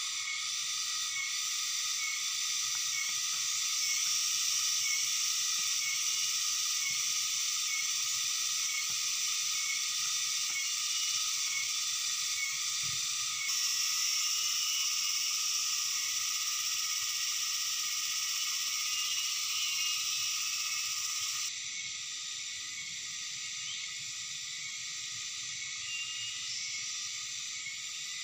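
Steady high-pitched chorus of insects, in several layered pitches, with a faint chirp repeating about once a second in the first half. It shifts abruptly about halfway and turns quieter about three-quarters of the way through.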